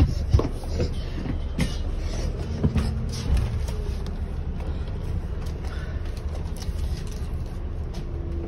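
Gemini double-decker bus heard from the upper deck while under way: a steady low engine and road rumble, with a few knocks and clicks during the first three seconds or so.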